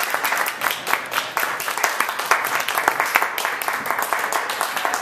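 Audience applauding, many hands clapping steadily at the end of a speech.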